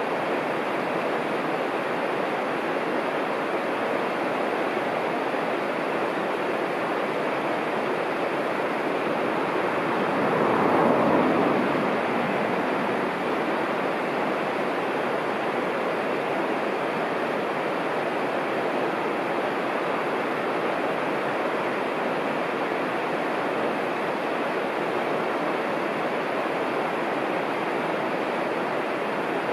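Shallow river rapids rushing steadily, with a brief swell in the rushing about ten seconds in.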